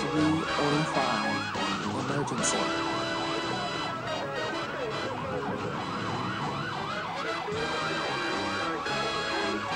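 Ambulance's electronic siren in yelp mode: a fast, repeating rise-and-fall wail, several sweeps a second, going without a break.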